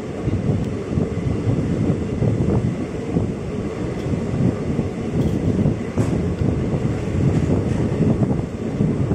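Wind buffeting the microphone held out of a moving passenger train, over the steady rumble of the train running along the track.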